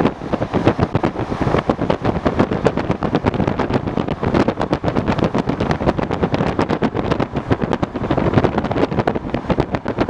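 Russian suburban electric train (elektrichka) running at speed, heard at a passenger window: a steady rumble with dense, constant rattling from the wheels and car, and wind noise on the microphone.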